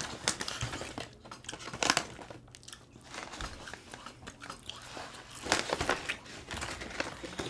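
Close-up chewing and munching of french fries, with crackles of the paper fry bag as a hand reaches in for more.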